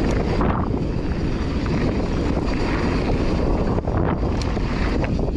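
Mountain bike rolling along a dry dirt singletrack, with wind rushing over the GoPro's microphone and tyre noise from the trail; a few short clicks, near the start and around four seconds in, stand out from the steady rush.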